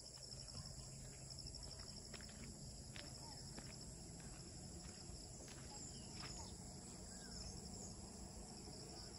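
Steady, faint chorus of insects, crickets trilling at several high pitches with a fine pulsing rhythm, with a few faint chirps and clicks over it.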